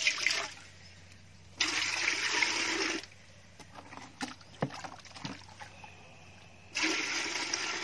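Water poured into a metal cooking pot, in two pours of about a second and a half each, with a couple of light knocks between them.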